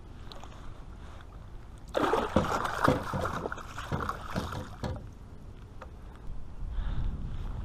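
Small muskellunge thrashing in a landing net at the water's surface: a burst of splashing that starts about two seconds in and lasts about three seconds.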